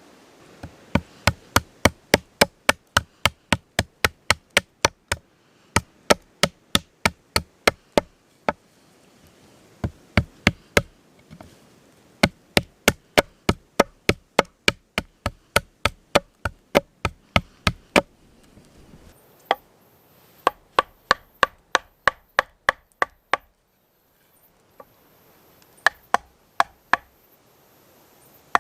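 Rapid runs of sharp knocks of a tool striking wood, about three to four strikes a second, broken by short pauses.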